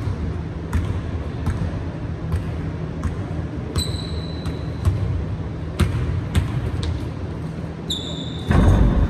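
Basketball bouncing on a hardwood gym floor, single bounces at uneven intervals, with two short high squeaks like sneaker soles about four and eight seconds in. A steady low hum runs underneath, and a louder low thud comes near the end.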